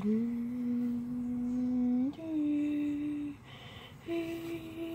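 A person humming three long held notes, each a little higher than the one before, the first sliding up slightly at its start, with a short break before the third.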